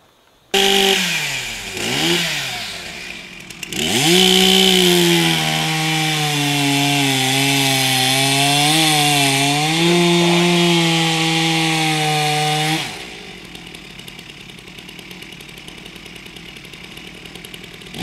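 Two-stroke chainsaw cutting into the trunk of a lodgepole pine during felling. It starts suddenly, revs and falls back, then revs up again and holds at full throttle for about nine seconds, its pitch sagging as the chain bites. It drops back to a quieter idle about thirteen seconds in and revs again near the end.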